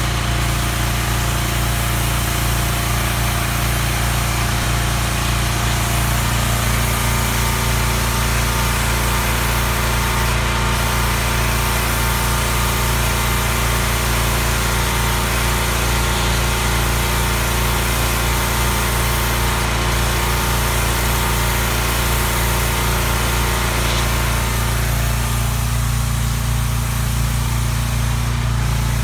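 Pressure washer running with a steady motor drone under the hiss of its water jet spraying a wooden fence. The spray hiss lessens near the end while the motor keeps running.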